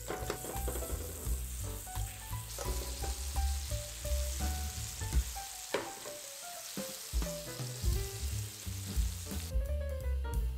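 Pancakes frying in butter in a nonstick pan, a steady sizzle that stops about nine and a half seconds in. Jazz music plays underneath.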